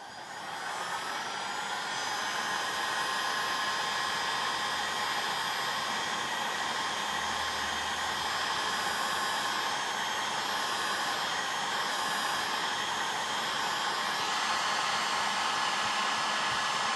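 Temperature-controlled heat gun blowing hot air steadily, a fan-driven rush of air with a faint whine. It builds up over the first second or two, the whine rising as the fan spins up, then holds level.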